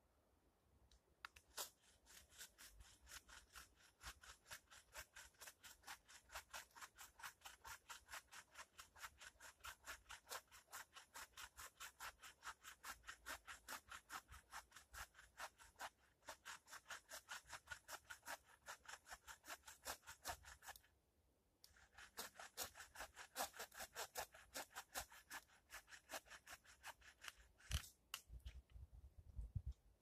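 Hand saw cutting a fallen log with quick, even push-pull strokes, about three a second. The sawing pauses briefly about two-thirds of the way through, resumes, then stops, followed by a couple of knocks near the end.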